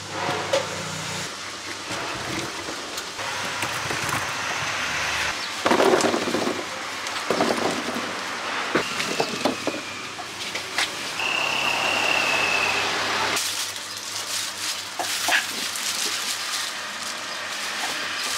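Street traffic noise from passing vehicles, with knocks and rustles of fruit being picked up and handled, and a short steady high tone about two-thirds of the way through.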